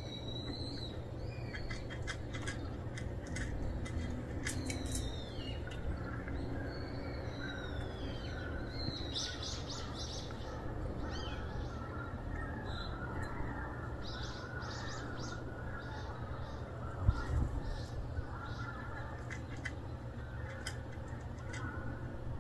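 Wild birds chirping and calling in short high notes and falling glides over a steady low background rumble, with one brief low thump about three-quarters of the way through.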